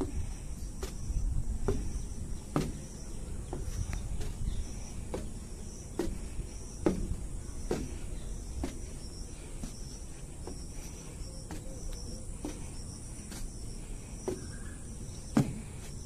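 Insects chirping in a steady, high, pulsing chorus, with footsteps climbing plank stair treads about once a second.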